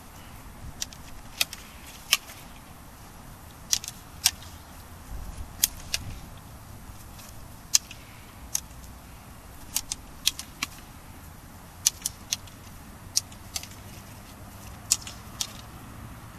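Practice jian (long sticks) clacking together in sparring: sharp, irregular clacks, some single and some in quick pairs, about one every second or less, over a steady low background rumble.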